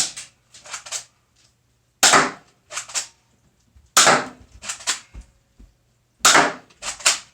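Airsoft gun fired four times, roughly one shot every two seconds, each sharp crack followed by a couple of lighter ticks as the plastic pellet strikes and bounces.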